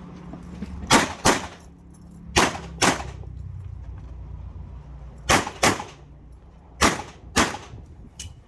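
Handgun fired in four quick pairs of shots, eight shots in all, with a pause of a second or more between pairs: double-taps on IPSC targets during a timed stage.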